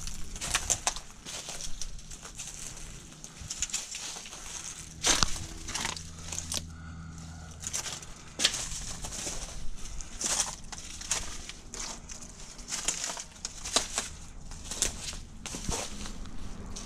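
Irregular crunching and crackling footsteps over dry debris.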